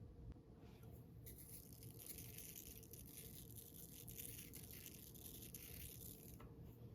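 Faint scrubbing: a brush or sponge rubbing back and forth on a surface, starting about a second in and stopping about a second before the end.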